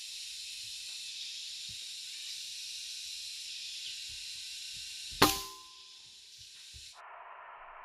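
Steady high hiss, then a single sharp crack about five seconds in, followed by a brief ringing tone.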